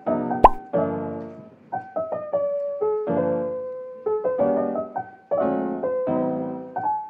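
Background piano music: soft struck chords and melody notes, each ringing out and fading before the next. A sharp click about half a second in.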